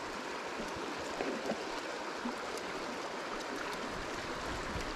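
Creek water rushing steadily over a rocky riffle.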